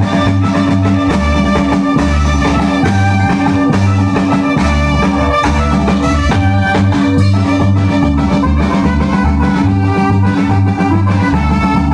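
Loud band music with drums and a steady, pulsing bass beat.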